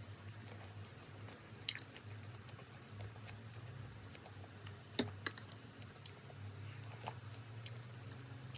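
A handful of sharp clicks and taps, the loudest about five seconds in, over a steady low hum.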